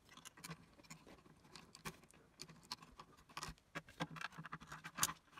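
Plastic CD player disc tray and mechanism parts being handled by hand: scattered faint clicks and scrapes.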